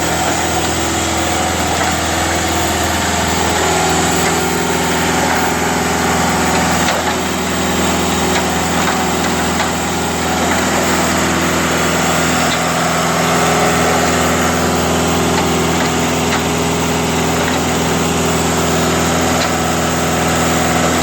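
Engine of an Olin 575 concrete trailer pump running steadily, its pitch shifting slightly a few seconds in.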